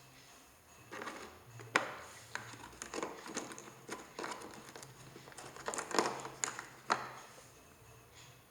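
Small drill accessories and their packaging being handled in the tool case: an irregular run of clicks, taps and rustles, with the sharpest clicks about two, six and seven seconds in.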